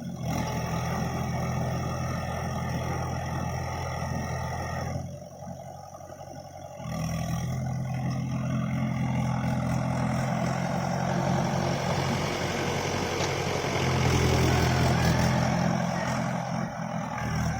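Tractor diesel engine running steadily, dropping away for a couple of seconds about five seconds in, then coming back and running louder near the end.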